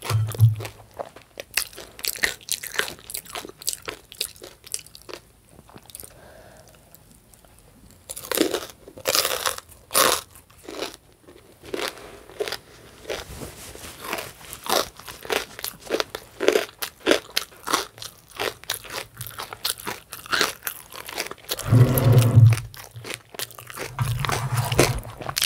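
Close-miked chewing and crunching of crunchy breakfast food: many short sharp crunches with a quieter pause partway through, and a couple of louder low sounds near the end.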